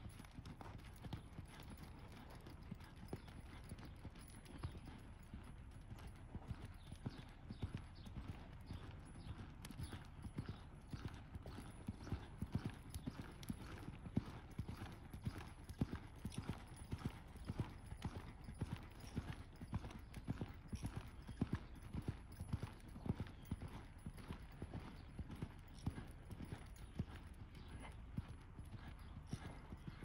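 A horse's hoofbeats on a dirt arena at a lope, a steady rhythm of soft thuds.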